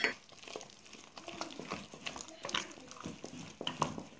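Thick churro dough being stirred in a metal pot: irregular wet squelches and scrapes, after a sharp knock at the very start.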